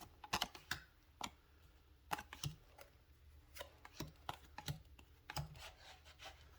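Small tarot cards being handled and flipped through one by one: irregular light clicks and taps of card stock, a few each second.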